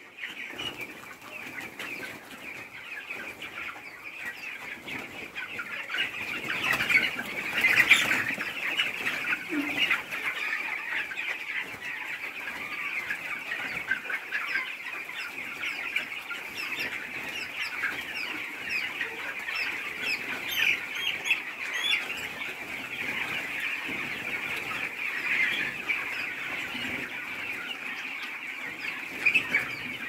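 A large flock of 20-day-old chicks in a poultry shed, hundreds of birds peeping and cheeping continuously in a dense overlapping chorus. The din swells briefly about seven to eight seconds in.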